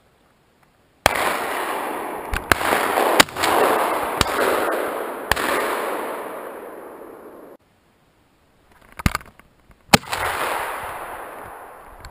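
Shotgun shots fired at flying pigeons: a quick run of shots between about one and five seconds in, then another shot near the end, each followed by a long echo fading off the surrounding forest.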